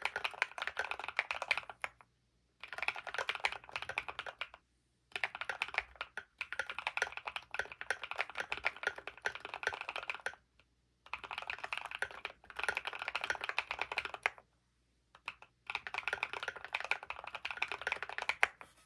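Custom mechanical keyboard being typed on quickly: a Varo AC067 with factory-lubed Pure Berry switches on a gasket-mounted aluminium plate, Drop MT3 keycaps, tape mod and Thinsulate foam. The typing comes in runs of a few seconds broken by brief pauses.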